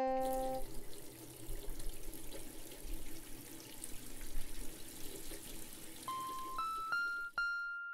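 Water running from a kitchen tap into a metal percolator pot, splashing unevenly. A piano chord dies away at the start, and single electric-piano notes come back in from about six seconds in, each a little higher.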